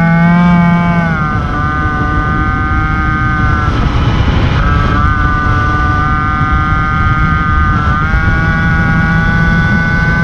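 MBK 51 moped's 50cc two-stroke engine running at high revs while riding, heard from on board with wind rushing over the microphone. The engine note dips about a second in, is briefly covered by a surge of rushing noise around four seconds in, and dips and climbs again near the end.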